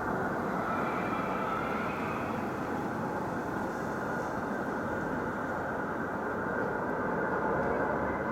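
Steady, low droning rumble from the sky over a city, with a faint higher tone about a second in: one of the unexplained 'strange sounds in the sky'.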